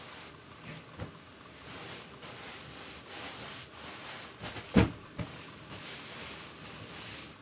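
Bedding rustling and soft thumps as pillows and a bundle are tossed and set down on a bed, with the loudest thump just under five seconds in and a smaller one right after.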